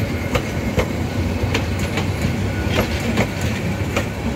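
Passenger coaches of an intercity express train rolling past close by: a steady rumble of wheels on the rails, with sharp clicks as the wheels cross rail joints, several of them in quick pairs.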